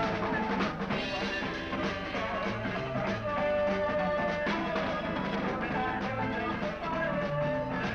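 Background music with drums and long held melody notes over a steady beat.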